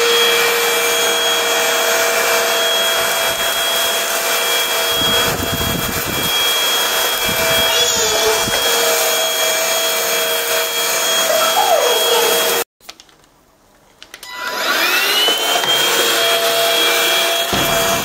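PRETTYCARE W200 cordless stick vacuum running steadily with a motor whine as its floor brush is pushed over tiles. About two-thirds of the way through it cuts off abruptly, then a second or so later starts again, the whine rising as the motor spins back up.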